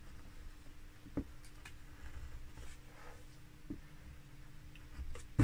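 Hand carving in linden wood: a few faint scrapes and ticks of a carving chisel, with a sharper knock of the tool right at the end.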